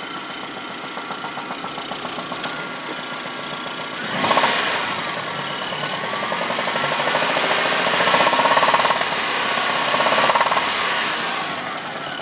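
1997 Saturn SC2's 1.9-litre twin-cam four-cylinder engine running with a steady knock, a fault that began after the engine was taken to high RPM. The revs rise sharply about four seconds in, stay up with the pitch wavering, and fall back near the end.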